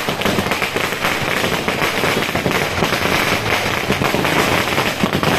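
Firecrackers bursting in a rapid, continuous crackle of sharp pops.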